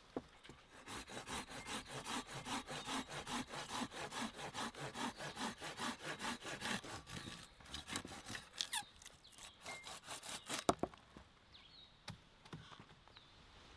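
Curved-blade hand pruning saw cutting through a branch: fast, steady back-and-forth strokes, several a second, for about seven seconds, then slower, scattered strokes. A single sharp crack comes about eleven seconds in.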